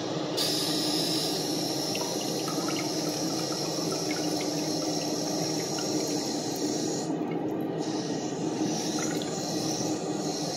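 Eljer Patriot toilet tank refilling through its float-ball ballcock valve: a steady rush of water into the tank.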